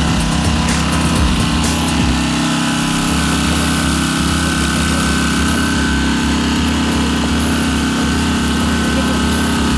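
Small petrol engine of a portable hydraulic power unit running steadily, driving the pump that feeds a hydraulic rescue tool through its hoses.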